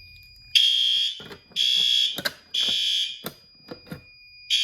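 Fire alarm horn strobes (System Sensor P2RL) sounding the temporal-three evacuation pattern on high volume: three short loud horn blasts, a pause, and the next cycle starting near the end. A thin steady high tone runs underneath, with a few sharp clicks between the blasts.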